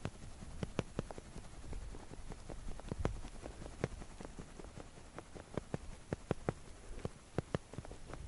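Irregular light clicks and taps, a few a second and uneven in strength, from handling a winter jigging rod and gear over an ice hole, over a low wind rumble.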